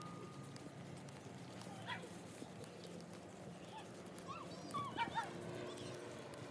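Faint open-air ambience with a few short, high, chirping animal calls from a distance, once about two seconds in and a small cluster around five seconds in.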